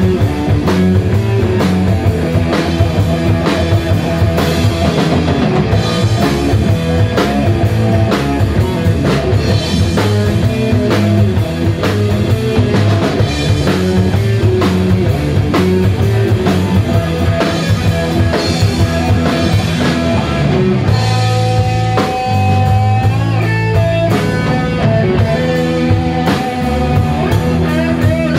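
Rock band playing live on electric guitar, bass guitar and drum kit, in an instrumental passage without vocals.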